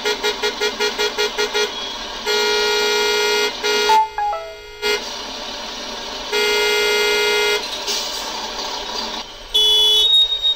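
Recorded traffic sound played through a loudspeaker: car horns honking over a steady traffic background. It opens with a quick run of about nine short toots, followed by three long horn blasts, and a higher-pitched horn sounds near the end.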